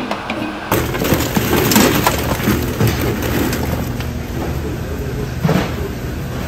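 A stainless-steel pot lid rings briefly as it is handled at the start. Then come clattering and small metal clinks as battered fried food is tipped from a metal pan into a steam-table tray, with a sharp clang about five and a half seconds in, over steady kitchen background noise.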